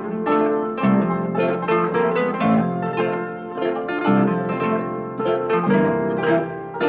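Background music played on plucked strings, a quick run of notes with several attacks a second.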